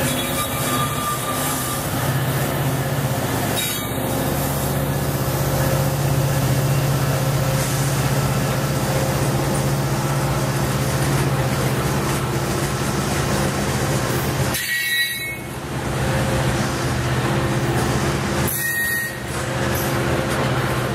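Freight train passing at close range: the trailing diesel locomotive goes by at the start, then covered grain hopper cars roll past with a steady rumble of steel wheels on rail. The sound dips briefly twice in the later part.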